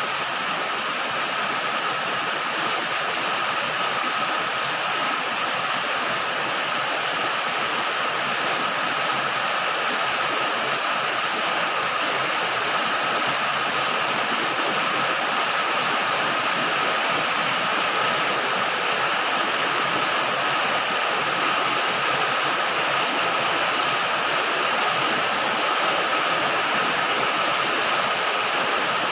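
Rain falling steadily on a galvalume sheet-metal roof: a dense, even hiss of countless drops with no single hits standing out, holding the same level throughout.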